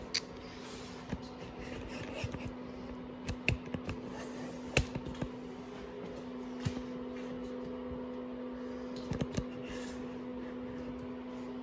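Scattered light clicks and taps of metal parts and a clutch cable being handled on a dirt bike, some in quick little clusters, over a steady low hum.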